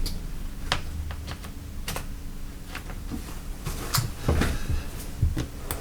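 Irregular light clicks and taps of small parts being handled on a workbench, such as clip leads, probes and a power connector being set up, over a steady low electrical hum.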